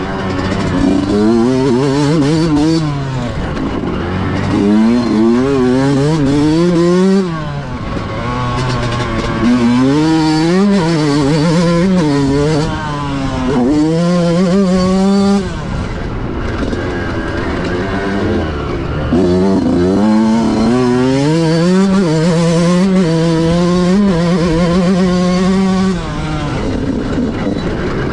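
Yamaha motocross bike engine revving hard while being ridden, its pitch climbing repeatedly and dropping away each time the throttle is rolled off, several times over.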